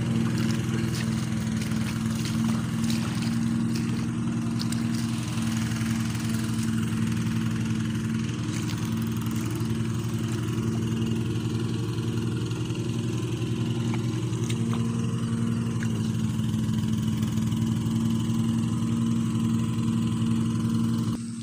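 A small engine running steadily at constant speed, with a steady low hum that does not rise or fall. It drops away abruptly near the end.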